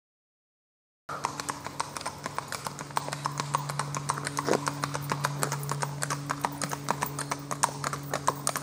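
Ridden horse's hooves clip-clopping on a paved road at a quick, even beat of about five hoofbeats a second, starting about a second in. A steady low hum runs underneath.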